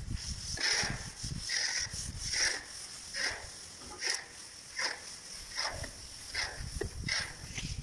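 Hand float scraping over wet cement plaster on a wall in a steady rhythm of short rubbing strokes, a little over one a second.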